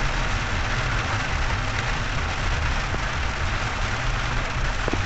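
Rain falling on a car's windshield and roof, heard from inside the cabin as a steady hiss over the low rumble of the car's engine and tyres on the wet road.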